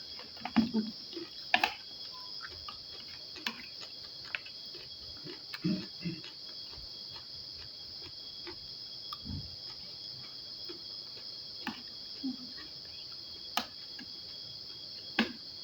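Eating sounds: scattered sharp clicks of a spoon against a plate and a few short soft chewing sounds, over a steady high-pitched chirring.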